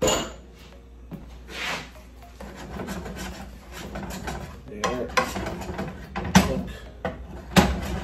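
Wooden spatula scraping and stirring minced onion, garlic and ginger in butter in a nonstick frying pan. The strokes come in an uneven rasping run, with two sharper knocks of the spatula on the pan near the end.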